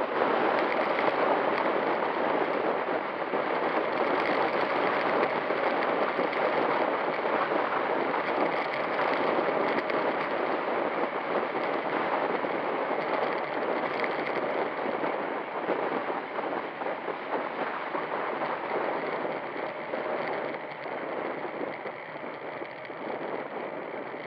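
Steady rush of wind buffeting a bicycle-mounted camera's microphone while the road bike coasts downhill, with no distinct events. The rush gradually eases over the last several seconds as the bike slows.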